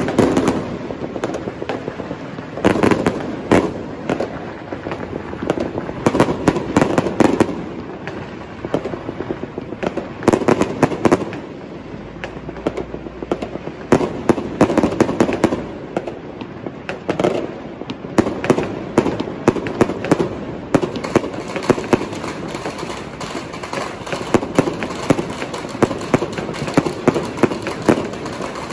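Fireworks going off: clusters of sharp bangs and crackling every few seconds, becoming a dense, near-continuous crackle in the second half.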